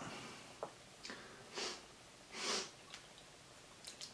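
A man sniffing twice through the nose, short sniffs about a second apart, the second a little louder, with a faint click before them and soft ticks near the end.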